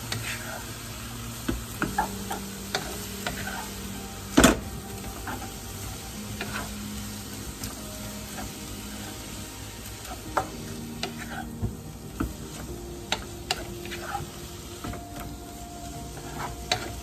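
Bean sprouts sizzling in a hot non-stick pan while a wooden spatula stirs and tosses them, with scattered scrapes and taps against the pan. A sharp knock about four seconds in is the loudest sound.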